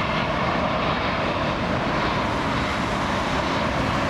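Twin-engine jet airliner on final approach, its engines running with a steady rushing noise.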